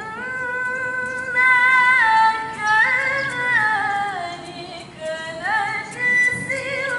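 A young woman's voice reciting the Qur'an in melodic tilawah style into a microphone: long held, ornamented notes with slow slides in pitch. Near five seconds in there is a short break, then a rising phrase.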